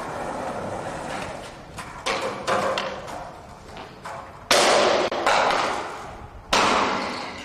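Skateboard knocking down hard on pavement about five times: sharp cracks about two, four and a half, five and six and a half seconds in, each trailing off over about a second, with the ones near the middle and end the loudest.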